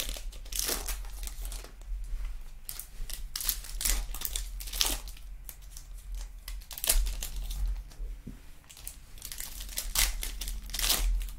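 Foil wrapper of a Donruss Optic football retail card pack being torn open and peeled back by hand, crinkling in irregular bursts.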